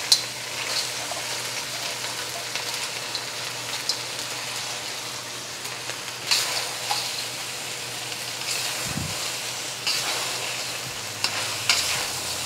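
Crawfish sizzling in hot oil in a carbon steel wok, stir-fried with a metal spatula that scrapes and clicks against the wok a few times.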